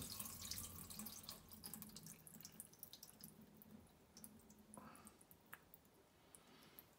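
Faint rinse water draining off a bowl of herring roe past a plate held as a lid, trickling into a stainless-steel sink. The trickle fades over the first few seconds into scattered drips.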